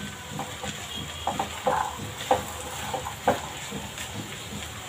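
Spatula stirring black chickpea masala in a non-stick kadhai, scraping and knocking against the pan in irregular strokes over a steady faint sizzle.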